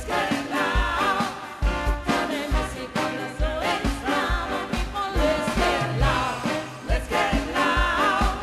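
Live dance band playing an up-tempo number, with a steady kick drum and bass beat about twice a second under a wavering melody line.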